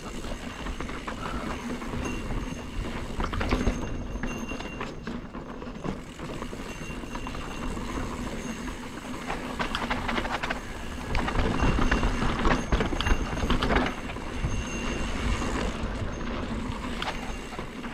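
Mountain bike riding a dirt singletrack, heard from a camera on the bike or rider: wind rumble on the microphone, tyres on dirt, and the bike's rattles and clicks. It gets louder for a few seconds about eleven seconds in.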